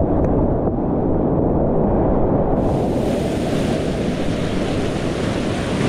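Rushing whitewater of a steep creek's rapids, a loud, steady noise that turns brighter and hissier about two and a half seconds in.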